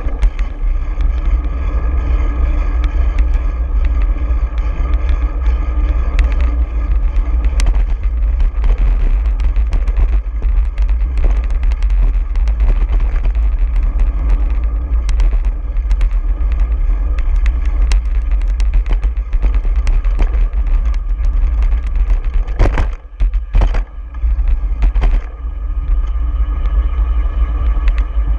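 Wind rushing over the microphone of a bicycle-mounted action camera while riding, mixed with road noise from passing car traffic. The rush drops away briefly twice, about five seconds before the end.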